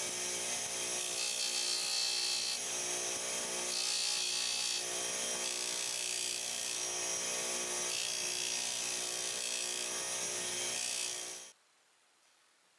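Power tool's spinning abrasive wheel scrubbing rust and grime off a steel pipe wrench. The motor runs steadily while the scraping hiss swells and eases as the part is pressed to the wheel, and it cuts off suddenly near the end.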